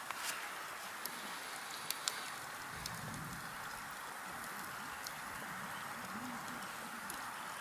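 Wood campfire crackling faintly: scattered sharp pops and ticks over a steady low hiss.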